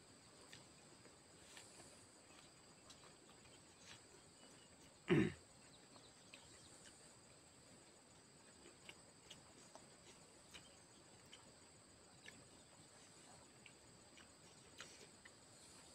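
Quiet sounds of eating by hand, fingers picking rice and food off a banana leaf with small soft clicks, over a steady high insect chirring. About five seconds in comes one short, loud cough-like throat-clearing sound.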